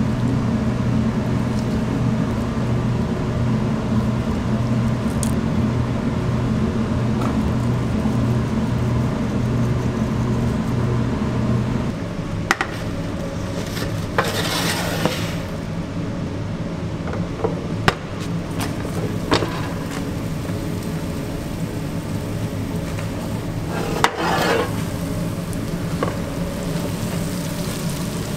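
Steady hum of commercial kitchen equipment, dropping a step about twelve seconds in, with scattered clicks and knocks of pans. Twice a short scraping rush of a metal pizza pan, the first as the pan slides into the deck oven.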